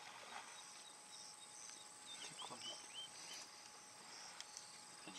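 Faint bush ambience: a steady high insect drone, with a few short bird chirps a little over two seconds in.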